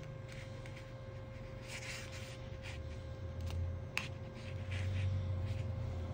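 Thin plastic opening card scraping, rubbing and tapping against the Google Pixel 3's body, with scratchy rustles and a few sharp clicks. A steady low hum runs underneath and grows louder in the second half.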